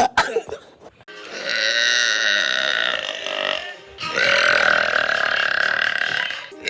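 Two long, drawn-out burps, each lasting about two and a half seconds. The first starts about a second in, and the second follows almost at once.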